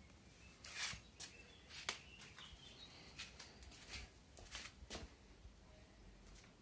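Faint footsteps and scuffing on brick paving, a scatter of short clicks, with a few faint bird chirps in the background about two to three seconds in.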